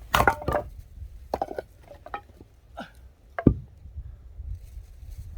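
Axe splitting frozen firewood: a hard strike right at the start and a sharper, louder one about three and a half seconds in, with smaller knocks of wood between.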